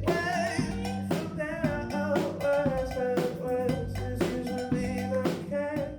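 Rock band music: a drum kit keeping a steady beat under a singing voice and instruments.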